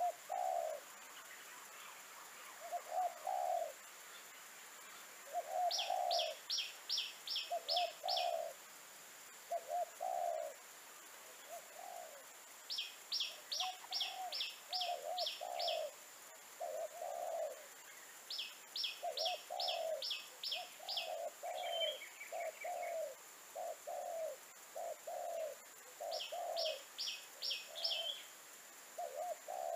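Spotted dove cooing over and over in short low phrases. Another bird four times gives a quick run of about seven high notes.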